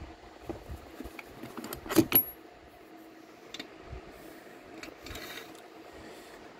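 Steel burr shank knocking and scraping against the cast-iron walls of an intake manifold port as it is worked in, with light clicks throughout and two sharp metal knocks about two seconds in. The burr will not reach the spot because the port's angle is too sharp.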